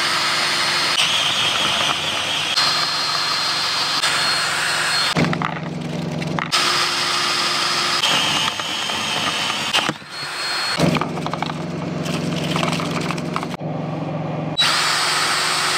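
DeWalt cordless drill running a 1-inch spade bit, a wood bit, down through the aluminum floor of a truck sleeper. It runs in four stretches of a few seconds each, with short stops between.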